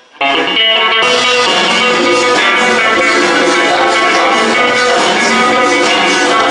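Loud music with guitar and drums, cutting in suddenly just after the start and then playing on steadily.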